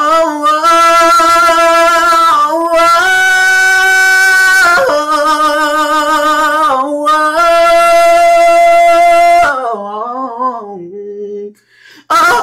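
A man singing a cappella: a string of long held notes sung on vowels, sliding up and down between them, ending in a wavering run that falls and fades about ten seconds in, then a short pause before the next note begins.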